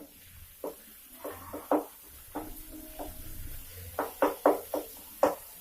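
Irregular clinks and knocks of a utensil against a cooking pan, about a dozen short strikes in two clusters, near the start and about four seconds in.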